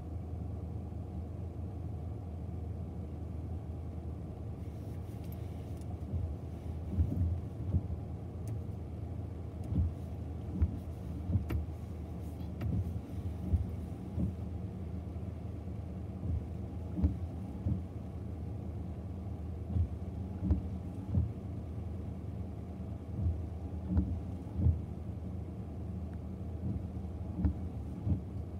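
Steady low hum heard from inside a stationary car, with irregular dull thumps scattered through it.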